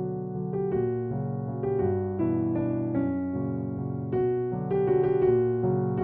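Background piano music: a melody of separate notes, roughly two or three a second, over held lower notes.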